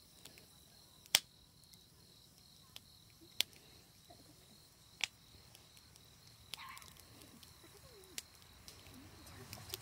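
Faint crickets trilling steadily in the background, with a few isolated sharp clicks.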